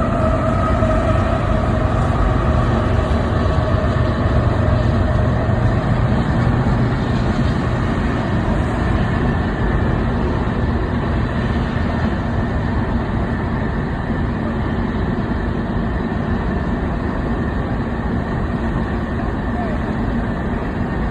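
Freight train rolling past: a steady, loud rumble of cars on the rails, with a thin high tone that fades over the first several seconds.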